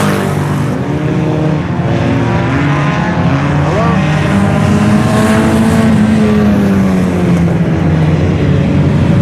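Several IMCA Sport Compact race cars' four-cylinder engines running together, their pitches rising and falling against one another as they lap the track.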